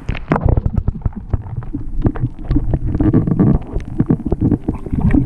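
Irregular low rumbling with many quick knocks and taps, like handling noise on a camera microphone.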